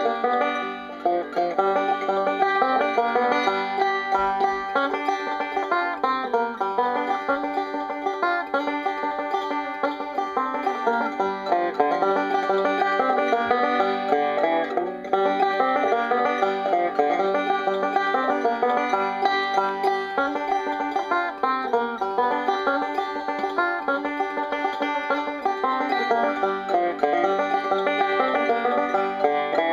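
Banjo playing a steady, unbroken run of plucked notes.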